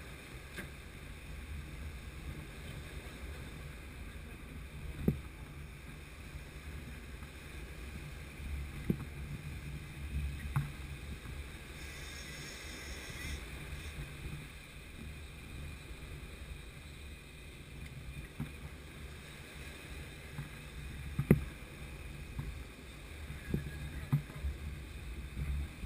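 Wind rumbling on the microphone over surf washing on the beach, with a few sharp knocks, the loudest about three-quarters of the way through.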